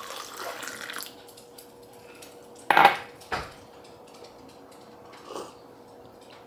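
Brewed coffee poured from a glass carafe into a ceramic mug, a soft stream for about the first second. Then a sharp clink of glassware and crockery, the loudest sound, with a duller knock just after.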